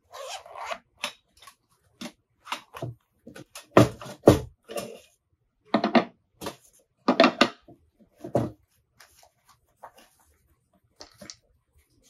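A zip on a mesh storage pouch pulled open, then folding grill parts (perforated cast-iron plates and a stainless steel body) taken out and set down on a wooden table, giving a series of separate metal knocks and handling noises, loudest about four and seven seconds in.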